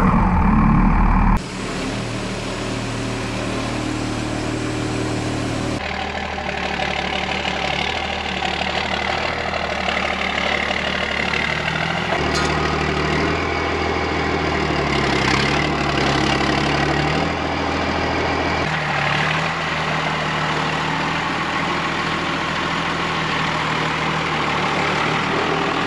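Cummins 6BT turbo-diesel inline-six catching on the starter, loudest in the first second and a half, then idling steadily, its pitch shifting slightly now and then.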